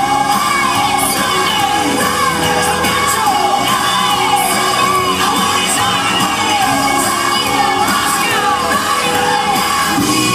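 Loud pop dance track with sung vocals playing over a hall's sound system for a stage dance routine, with the audience shouting and cheering along.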